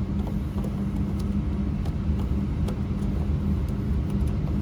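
A steady low machine hum with a constant low tone, and a few faint light ticks.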